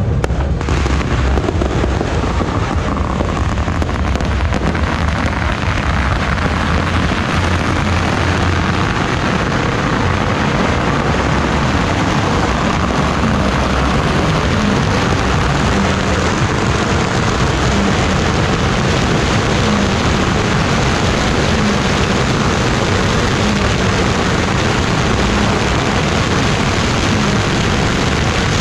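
Long strings of red firecrackers going off in a continuous, dense rapid crackle.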